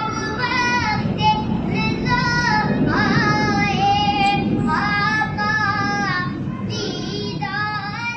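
A high voice singing a naat, an unaccompanied-style Urdu devotional song, in long held notes that waver and bend in pitch from phrase to phrase.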